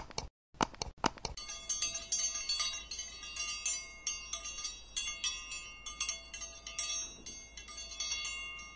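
Subscribe-button animation sound effect: a few quick clicks in the first second or so, then a fast run of small bells jingling and chiming.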